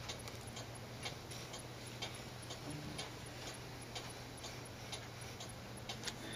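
A clock ticking steadily and faintly, about two ticks a second, over a steady low hum.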